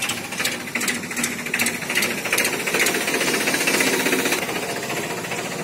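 A tractor's diesel engine running with a fast, even clatter.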